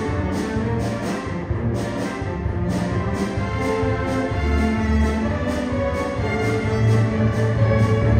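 Symphony orchestra playing a continuous passage: bowed strings with piano, over a regular pulse of short accents about two or three a second.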